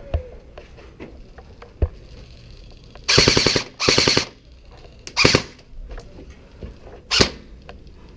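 Airsoft gun firing on full auto: two rapid bursts of about half a second each, back to back about three seconds in, then two shorter bursts a couple of seconds apart, with a few sharp single clicks before them.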